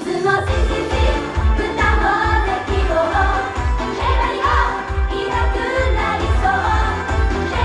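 Japanese idol pop song performed live: girls' voices singing a melody over a steady, pulsing bass beat.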